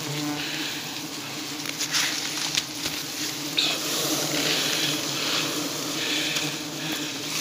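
A swarm of giant honey bees (Apis dorsata) buzzing around their open comb, a steady low hum, with a few scattered clicks and rustles.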